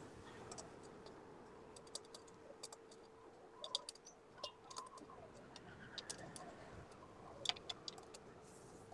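Faint, irregular light clicks and ticks, a few around the middle and a louder pair near the end, over a faint steady hum.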